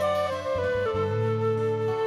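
Concert flute playing a slow melody over the band's accompaniment: a few short notes in the first second, then one long held note.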